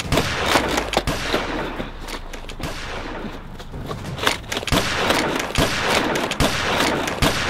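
Rapid automatic gunfire, a dense continuous volley with many irregular louder shots.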